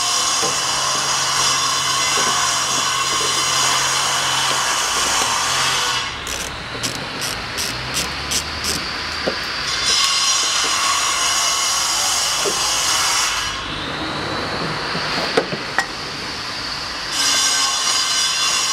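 Power screwdriver running in three long stretches as self-tapping screws are backed out of a car's plastic wheel-arch liner. Between the runs come a quick series of clicks and a few light knocks.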